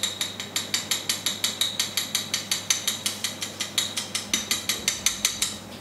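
Olive oil and squid ink whisked with a small metal spoon in a small glass bowl to emulsify them: the spoon clicks against the glass in a fast, even rhythm of about seven strokes a second.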